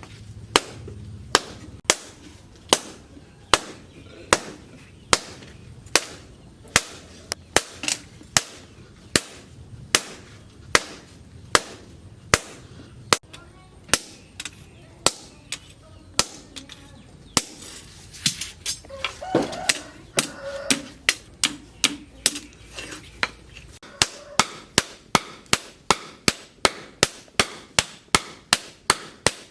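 Blacksmith's hammer striking steel on an anvil while forging a knife blade from plough-disc steel: sharp ringing blows in a steady beat of about one and a half a second, quickening to about two and a half a second near the end.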